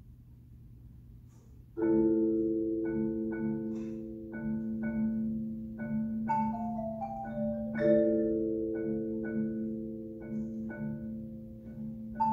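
Mallet percussion ensemble of marimbas and vibraphone starts playing about two seconds in: a held chord under repeated struck higher notes, a short falling run of notes midway, then a fresh chord.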